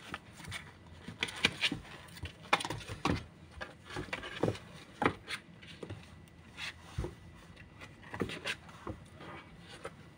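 Kittens' paws and claws scrabbling and tapping on a cardboard box floor as they wrestle: irregular scratches and light thumps, busiest in the first half.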